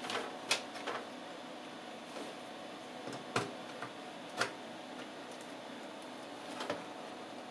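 About half a dozen light clicks and taps, scattered and irregular, from hands handling parts inside an opened desktop computer case, over a steady low hiss.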